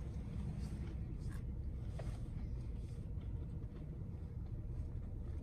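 Low steady rumble of a car, heard from inside the cabin, with a couple of faint clicks.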